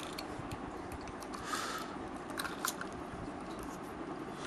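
Faint handling noise from a plastic internal aquarium filter: a few small plastic clicks and short soft rustles as its parts are fitted and turned in the hands.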